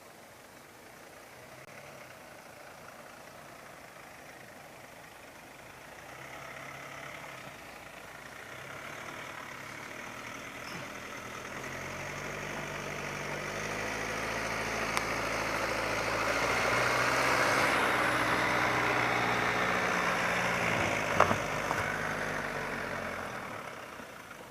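Mercedes-Benz Vito CDI diesel van driving off-road. Its engine note builds over about ten seconds to a peak, then fades away, with one sharp knock a few seconds before the end.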